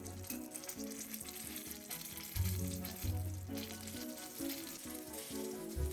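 Blueberry donut dough sizzling as it fries in hot oil, which the cook thinks may be a little too hot. Background music with a repeating bass line plays over it.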